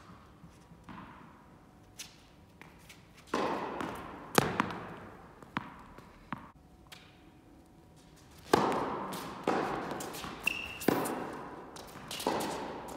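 Tennis ball struck by rackets and bouncing on the court during a rally, each hit ringing out in a long hall echo, with the loudest strikes about three and a half, eight and a half and eleven seconds in. A short high squeak comes about ten and a half seconds in.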